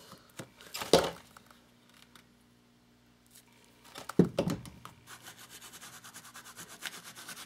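Two short knocks about three seconds apart, then a run of quick, faint dabs from about five seconds in: a foam sponge brush pouncing paint through a plastic stencil onto a paper journal page.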